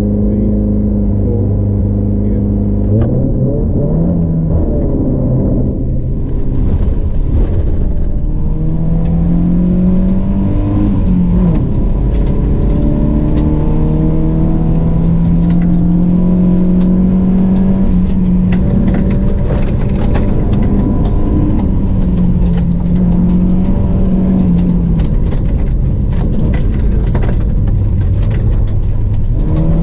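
Rally car engine heard from inside the cabin, driven hard on a gravel stage: its pitch climbs under acceleration and drops at each gear change or lift, over and over. Gravel and stones tick against the underbody throughout, more densely in the second half.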